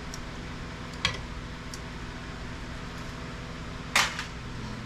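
A sharp click about a second in and a louder knock near the end, from hard parts being handled during the teardown of scrap IT equipment, over a steady hum.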